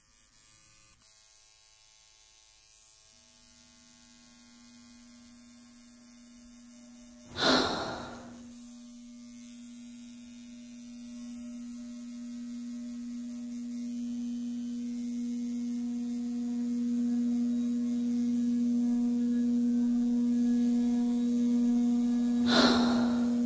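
Tattoo machine buzzing as a steady hum that grows slowly louder, broken by a short sharp burst of noise about seven seconds in and another near the end.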